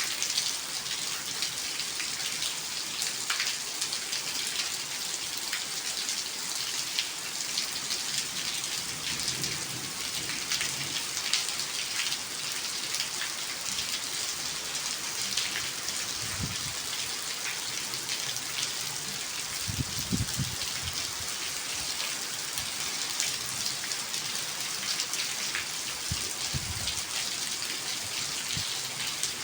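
Steady rain falling: an even hiss full of fine drop ticks. A few brief low rumbles come in the second half.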